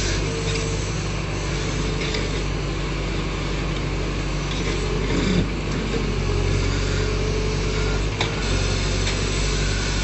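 Backhoe loader's diesel engine running steadily, with a short knock about five seconds in and another about eight seconds in.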